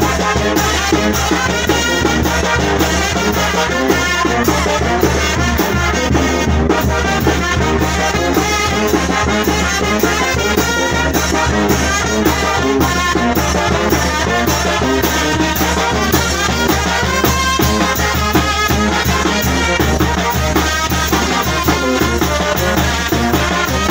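Brass band playing a lively dance tune, with trumpets and trombones over a steady beat and bass line.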